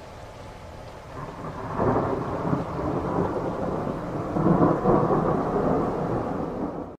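Thunder from a lightning strike: a low rumble that builds about a second in, rolls loudly with several swells, and cuts off suddenly near the end.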